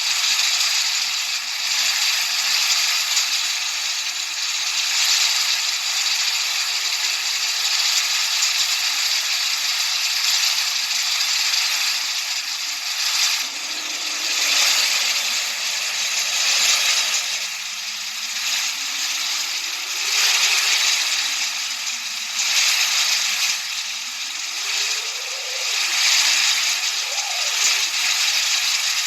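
Steady hissing masking noise with no bass, a faint low tone slowly gliding up and down beneath it, and the level swelling and easing every few seconds.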